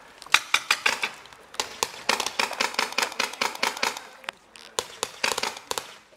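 Paintball markers firing in rapid volleys of sharp pops, several shots a second, with short pauses between bursts. The firing thins out after about four seconds.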